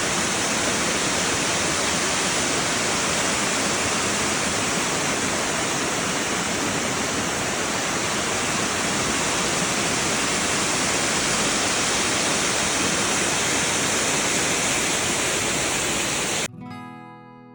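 A waterfall's water pouring down in a loud, steady, even rush. It cuts off abruptly about a second before the end, and strummed acoustic guitar music takes over.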